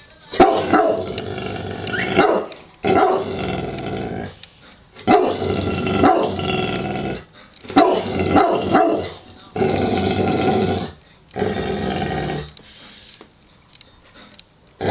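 A dog growling and barking at something it dislikes, in about six bouts: each opens with sharp barks and trails into a drawn-out growl, with short pauses between.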